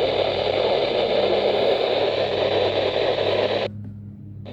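Static hiss from a NOAA weather radio receiver tuned to a station too weak to come through, with a steady low hum underneath. The static cuts off suddenly a little over three and a half seconds in and comes back at the very end.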